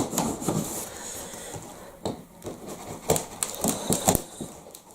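Handling noise from a cardboard parcel: rubbing and scraping, with a sharp knock at the start and a few more knocks about three to four seconds in.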